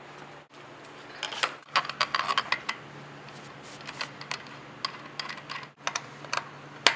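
Metal power block holder being handled and fitted onto an office panel's metal raceway: a quick run of small metallic clicks and rattles about a second in, then scattered clicks and one sharp click near the end, over a faint steady low hum.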